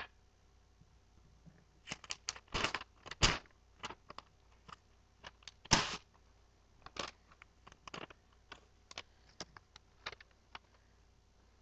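Irregular handling noises of someone rummaging around for a piece of paper: scattered clicks, knocks and short rustles, the loudest clustered a couple of seconds in and again around the middle, over a faint steady hum.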